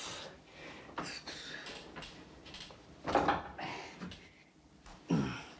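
A few separate creaks and knocks spaced roughly two seconds apart, the loudest about three seconds in, one with a short falling pitch near the end.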